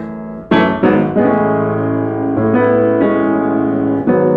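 Piano playing slow chords, each struck and left to ring: about half a dozen over four seconds.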